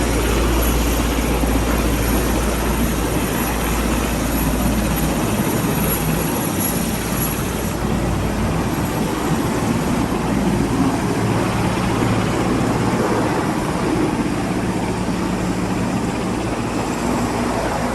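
Army helicopter hovering overhead: a steady, continuous rotor and turbine noise with a deep rumble that eases after about five seconds.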